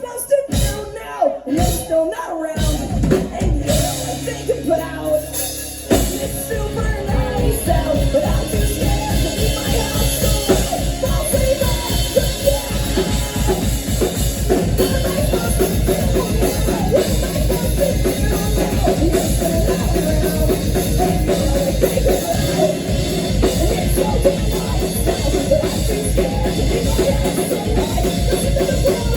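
Live rock band playing loud through a venue PA, with scattered hits and a held low note at first, then drums coming in with a fast, steady beat about six seconds in.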